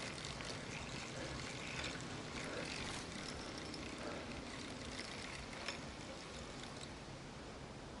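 Faint, steady rushing of river water, with a few soft clicks and one sharper tick about five and a half seconds in.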